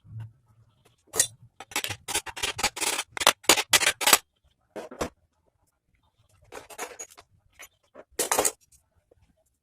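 Metal tools and engine parts clinking and scraping as they are handled: a quick run of clicks and scrapes for about three seconds, then a few shorter bursts near the end.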